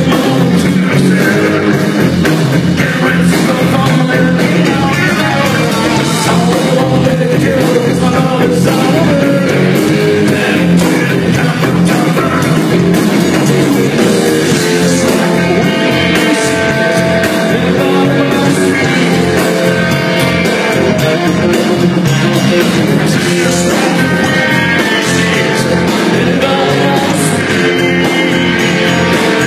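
Loud live rock band playing: electric guitar, bass and drums with a steady beat, and singing.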